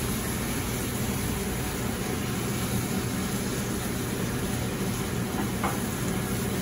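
Bone-in short ribs searing in hot vegetable oil in a stainless sauté pan on a gas range: a steady sizzle over the constant hum of the kitchen exhaust hood. The pan is hot enough to be starting to smoke.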